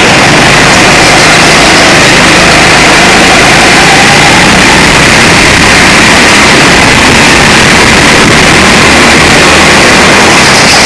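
Go-kart engine running at speed, heard from on board the kart, with other karts running close ahead. Steadily loud, with no let-up.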